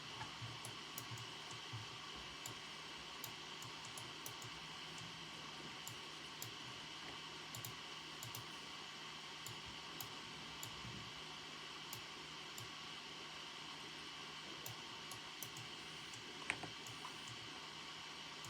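Computer keyboard being typed on: soft, irregular key clicks over a steady background hiss, with one louder click about sixteen and a half seconds in.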